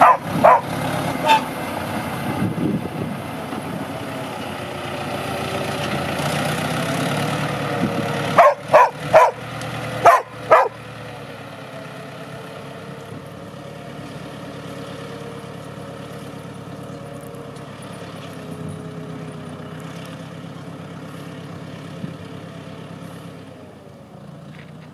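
ZT tractor's diesel engine running steadily while a dog barks: a couple of barks near the start, then a quick run of five barks about eight seconds in.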